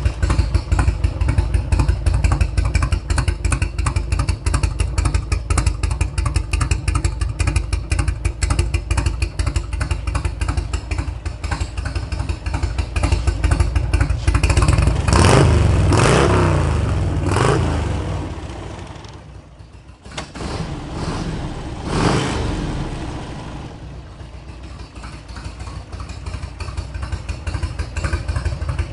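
A 1991 Harley-Davidson Electra Glide's 1340 cc Evolution V-twin idling with its uneven beat. About halfway through it is revved several times, eases down low, is blipped once more and settles back to idle.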